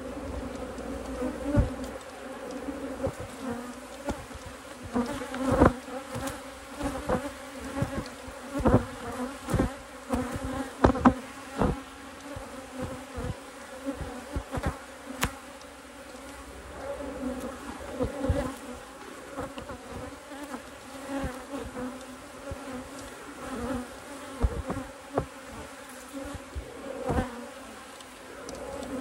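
Honeybees buzzing in a steady, even hum, with scattered sharp clicks and knocks, most frequent in the first half.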